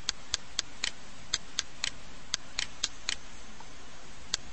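Computer mouse clicking: about a dozen short, sharp clicks in quick runs about a quarter second apart, with a pause of about a second before one more click near the end.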